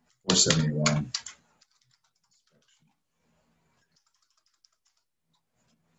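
A quick, loud flurry of typing on a computer keyboard lasting about a second, followed by a few faint scattered key clicks.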